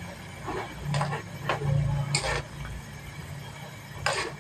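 A metal utensil scraping and knocking against a wok as instant noodles are stirred in boiling water. There are about five separate strokes, irregularly spaced, with the last one near the end.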